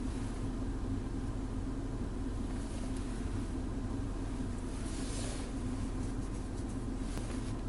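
Steady low drone of an idling car engine heard from inside the cabin, with a brief rush of noise about five seconds in.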